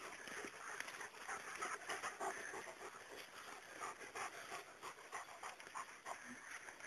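A dog panting hard after running, quick short breaths repeated a few times a second.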